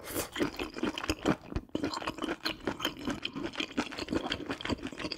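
Close-miked chewing of a mouthful of chewy stir-fried octopus: a rapid, steady run of small clicks and smacks.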